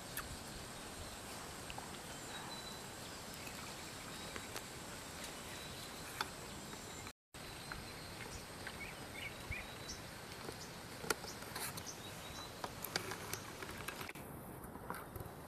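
Quiet outdoor ambience of a forest swamp: a steady hiss with a faint insect drone, a few short chirps and small scattered clicks. The sound drops out completely for a moment about seven seconds in.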